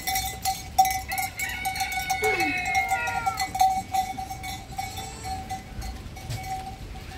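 Metal livestock bells clinking and ringing without pause as the goats move, with a few short animal calls between about one and three seconds in.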